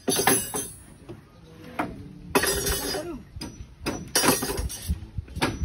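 Steel rebar being handled on timber beam formwork: a run of sharp metallic clinks and knocks, about seven, the loudest near the start.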